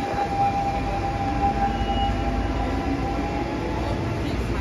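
Siemens C651 metro train pulling away from an elevated station: a steady low rumble of the train on the track, with the high hum of its GTO-VVVF traction equipment holding one tone and fading out about halfway through.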